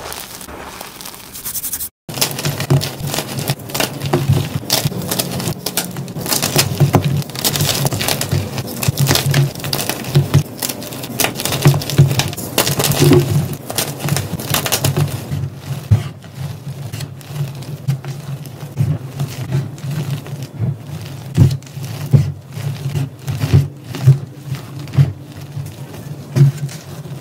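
Hands squeezing and crumbling soft, powdery gym chalk and small chalk chunks, a dense run of crunches and crackles, after a brief dropout about two seconds in.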